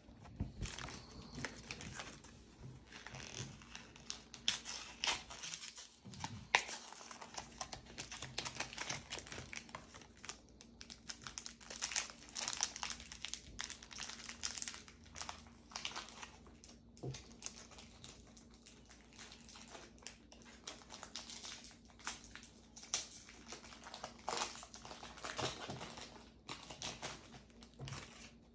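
Foil Pokémon card booster pack crinkling and tearing as it is pulled open by hand, in irregular rustles and crackles.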